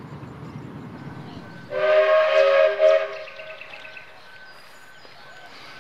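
A passing train's low rumble, which stops abruptly. A loud whistle blast of several tones sounding together follows, held about a second and a half before fading out.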